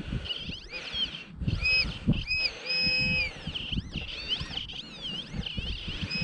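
Metal detector pinpointing tone warbling up and down, then holding one steady high note for under a second about three seconds in, as it closes in on a small target in the soil. Under it is the scrape and rustle of earth being dug and handled.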